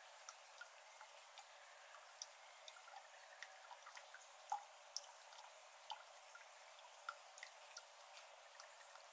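Faint, irregular plinks of water drops falling into the shallow water of a flooded iris garden, a few a second at differing pitches, with one louder drop about four and a half seconds in.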